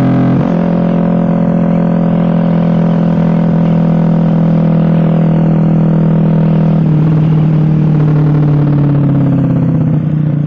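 Suzuki GSX-R150's single-cylinder engine running loud through an aftermarket racing exhaust under hard riding. The pitch steps down sharply about half a second in and again about seven seconds in, as with upshifts, and sinks a little near the end as the bike slows.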